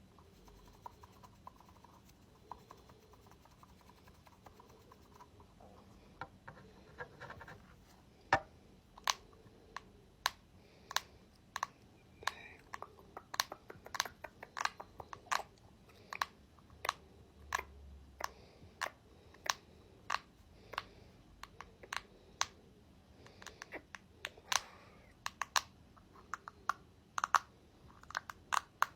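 ASMR handling of a ball: faint scratching, then from about six seconds in many sharp, irregular taps and clicks on it, one to a few a second.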